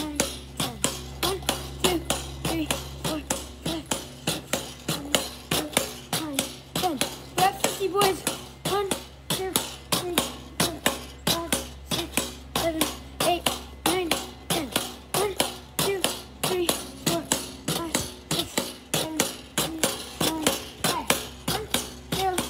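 Pogo stick bouncing steadily, its spring and metal frame clanking at each landing, about two bounces a second, each with a short ring.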